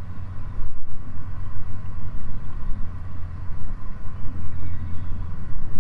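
Narrowboat's diesel engine running steadily while cruising, a low-pitched steady sound heard from the bow.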